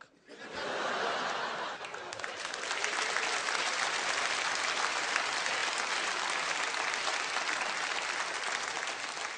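Audience applauding, the clapping swelling up about half a second in and then holding steady.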